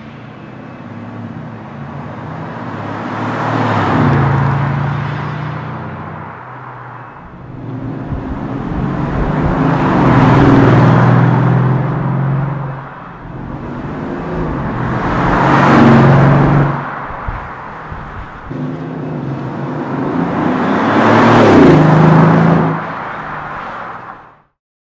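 Mercedes-Benz W207 E500 facelift V8 with an MEC Design aftermarket exhaust in its 'Earthquake' sound version, driving past four times. Each pass swells to a loud peak and fades. The first pass is slow and the later ones are at normal speed. The sound cuts off abruptly near the end.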